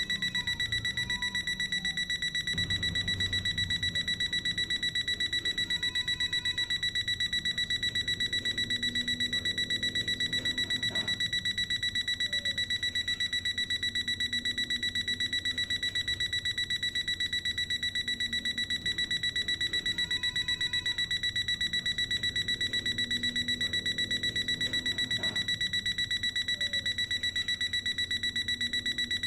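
IKEA Kupong alarm clock's alarm beeping: a fast, even stream of high electronic beeps, all at one pitch, going on without a break.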